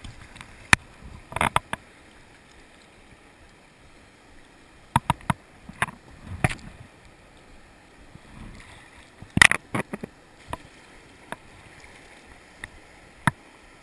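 Faint steady rush of whitewater rapids, broken by sharp close-up knocks and splashes from paddling and water slapping a plastic whitewater kayak, loudest in a cluster about two-thirds of the way through.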